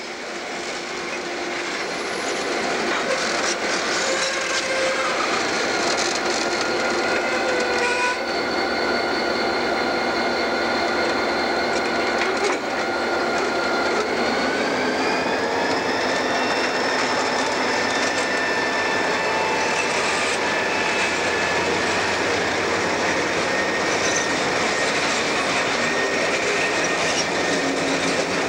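Freight train pulled by diesel locomotives rolling past close by as it leaves a siding: a steady rumble of engines and wheels builds over the first few seconds. Several high whining tones run over it and rise a little in pitch about halfway through.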